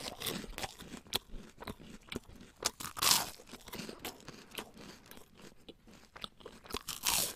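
Irregular crunching and crackling made of many small sharp clicks, with louder crunches about three seconds in and near the end.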